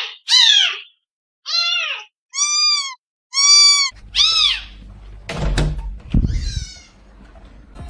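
A cat meowing about six times in short calls that rise and fall in pitch, followed by two dull thumps around five to six seconds in and a fainter meow.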